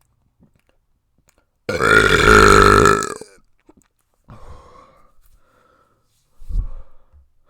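A person burping: one long, loud belch lasting about a second and a half, then a few seconds later a short, much quieter low sound.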